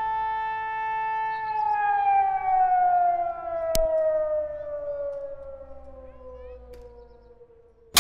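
Siren holding a steady wail, then winding down, its pitch falling slowly and fading away over the last few seconds. A single sharp click comes about four seconds in.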